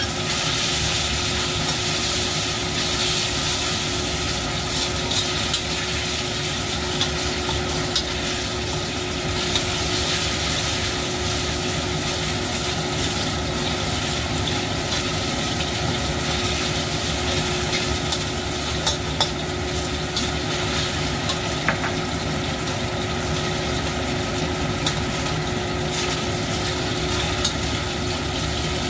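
Marinated meat sizzling in hot oil in a stainless steel wok, stirred with a metal spatula that scrapes and clicks against the pan now and then, over a steady hum.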